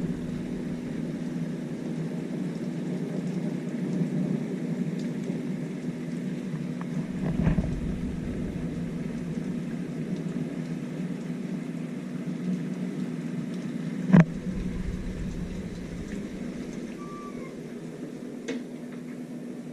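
Steady rain noise over a constant low hum, with a few sharp knocks, the loudest about fourteen seconds in.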